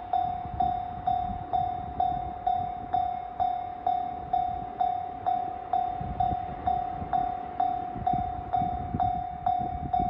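Japanese railway level-crossing warning bell ringing: one bell tone struck about twice a second, each strike dying away quickly, warning of an approaching train. A low rumble runs underneath.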